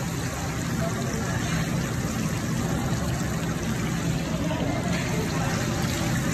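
Breaded chicken pieces deep-frying in a pan of hot oil: a dense, steady sizzle over a steady low hum.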